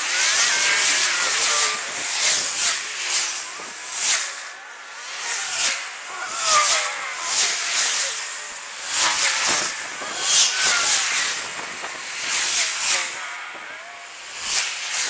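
Road traffic passing on a busy multi-lane road, heard as a quick run of hissing whooshes, about one a second, with short gliding whines from the passing vehicles.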